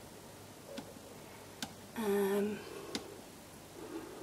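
Quiet room with a few faint clicks. About two seconds in comes a brief, level 'mm' hum from a woman's voice.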